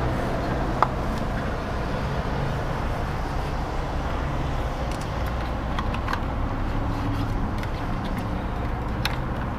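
Steady hum of road traffic or an idling motor vehicle with a constant wash of background noise, a small click about a second in and a few faint ticks near the end.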